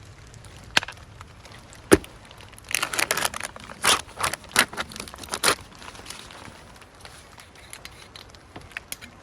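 Food packaging being handled and opened by hand: a couple of sharp clicks, then a run of crinkles and tearing in the middle.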